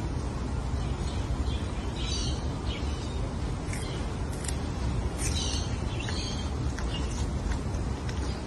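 A quokka chewing a red leaf, with a few short crisp crunches over a steady low rumble of wind on the microphone.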